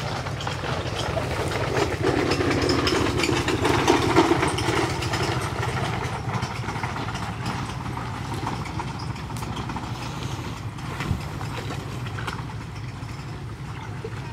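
A steady low engine drone, with water splashing and sloshing around a person wading waist-deep through a shallow muddy channel, loudest between about two and five seconds in.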